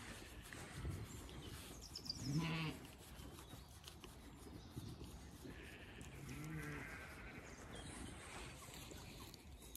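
Zwartbles ewes bleating: two short, low bleats, one about two seconds in and another about six seconds in.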